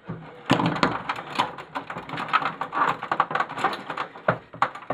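Plastic printer parts clattering, clicking and cracking as the housing is cut and pried apart by hand, a dense run of small knocks with a few louder snaps.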